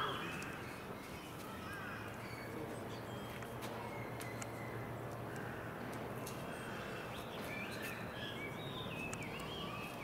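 Outdoor background noise with a steady low hum, faint distant voices, and short high chirping calls near the start and again near the end.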